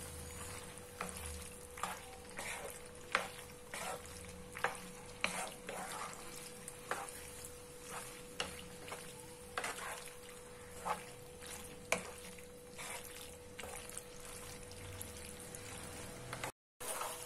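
A spatula stirring penne in tomato sauce in a non-stick pan, knocking and scraping against the pan about once or twice a second, over the faint sizzle of the sauce on low heat. A steady faint hum runs underneath.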